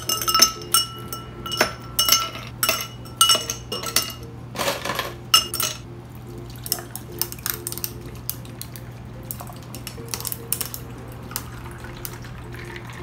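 Ice cubes dropped one after another into two tall glass tumblers, each landing with a sharp clink that rings briefly. After about six seconds a dark drink is poured over the ice, giving softer, quicker clinks and ticks as the cubes shift and settle.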